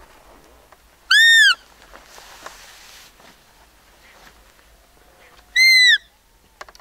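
Roe deer call blown twice, each a high squeak of about half a second that rises and falls in pitch, some four seconds apart. It imitates a roe doe's fiep to lure a roebuck in the rut.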